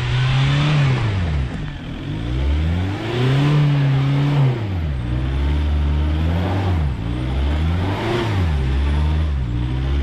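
Citroen C8 minivan's engine revving up and dropping back several times as it struggles to climb a wet grassy slope.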